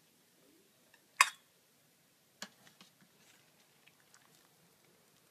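Metal ladle clinking against a stainless steel pot and bowl as soup is served: one sharp clink about a second in, a softer one a little over a second later, then a few light ticks.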